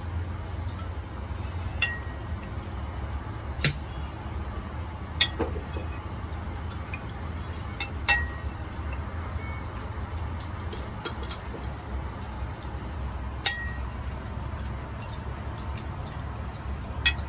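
Ceramic spoons and chopsticks clinking against porcelain soup bowls: a handful of sharp clinks spread out, several with a short ringing tone, over a steady low hum.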